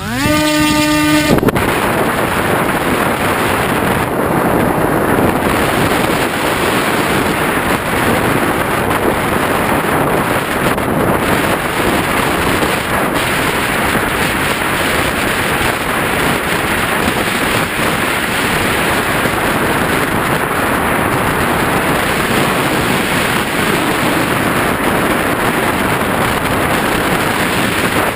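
A model plane's propeller motor spins up with a rising whine in the first second or so, then a steady loud rush of wind and propeller noise on the plane's onboard camera microphone as it flies.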